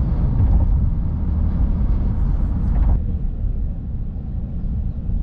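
Low, steady rumble of an Airbus A380 airliner. About three seconds in it shifts to a quieter, duller rumble.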